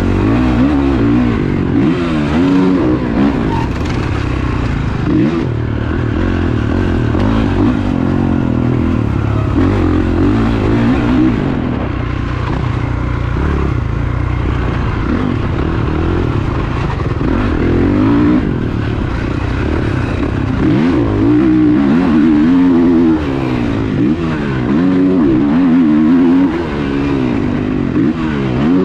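Motocross bike engine revving hard and dropping back again and again through a lap, heard from a camera mounted on the bike.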